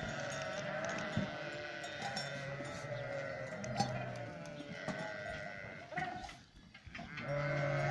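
A large flock of sheep bleating, many calls overlapping into a continuous chorus that drops briefly about three quarters of the way through.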